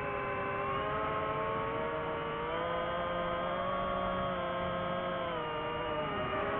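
DJI FPV drone's electric motors and propellers whining, a chord of steady tones that rises in pitch about a second in and falls again near the end as the throttle changes.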